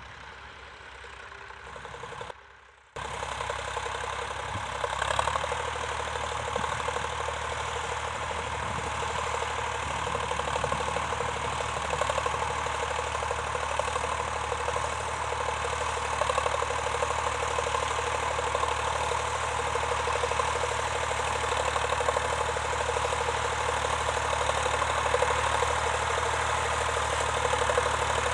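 Vintage tractor engine running steadily with a knocking beat, coming in abruptly after a brief gap about three seconds in.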